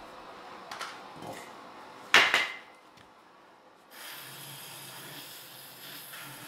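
A few sharp clicks and one loud snap about two seconds in, then from about four seconds in a steady hiss of compressed air from an air nozzle blowing into the gap between tire bead and rim, with a low hum under it.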